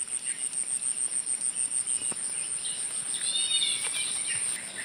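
Insects chirping steadily in a high, fast pulsing trill, about eight pulses a second.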